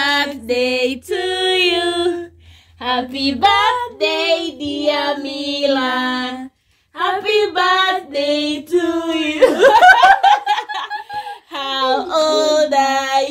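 Voices singing unaccompanied in short held phrases, with a louder, rougher vocal outburst about ten seconds in.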